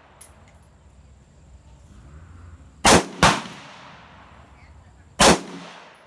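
AR-15 rifle firing three shots: two in quick succession about three seconds in, a third about two seconds later, each shot trailing off in a short echo.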